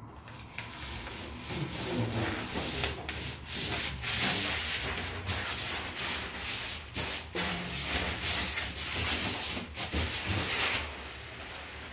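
Protective plastic film being peeled off a large thin decorative wall panel, crackling and rustling as it pulls away and bunches up. It stops near the end.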